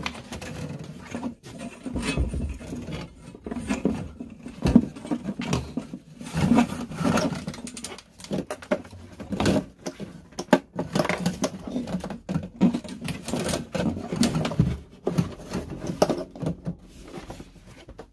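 Handling noise as a diesel heater is trial-fitted: corrugated ducting hoses rustling and scraping, and the heater unit being shifted on its floor plate, with irregular knocks and scrapes.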